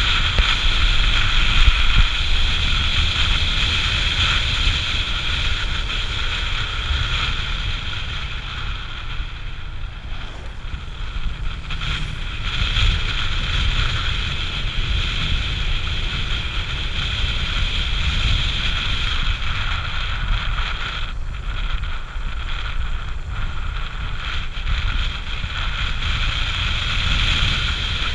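Motorbike ride at road speed: wind rushing and buffeting over the microphone, with the bike's engine running steadily underneath. It eases off for a few seconds about ten seconds in.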